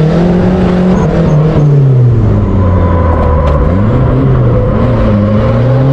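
Turbocharged KA24 four-cylinder engine of a drifting pickup truck heard from inside the cab. The revs hold, then drop about a second and a half in, then climb again and hold near the end.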